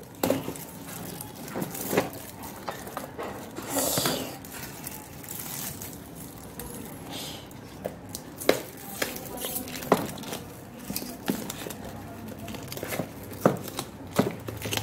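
Sellotape being picked at and peeled off a small cardboard box, with scattered light clicks and crinkles of the card and tape, and a short tearing rasp about four seconds in.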